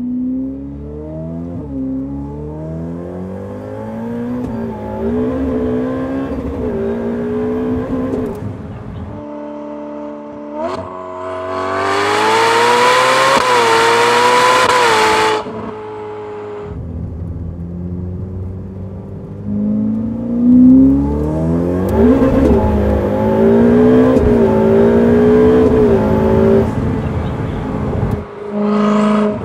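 Ferrari 488 Pista's twin-turbo V8, with Fabspeed sport catalytic converters and Valvetronic dual-tone exhaust, under full-throttle acceleration. The pitch climbs and drops back at each upshift. It is heard from inside the cabin, then for about five seconds in the middle close at the exhaust tip, louder and brighter, then from the cabin again.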